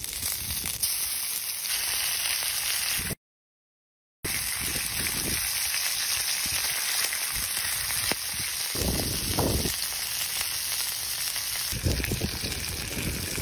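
Oil and strips of pork belly sizzling steadily on a hot stone slab, with a few soft bumps of a metal spatula pressing and scraping the meat. The sound cuts out completely for about a second, three seconds in.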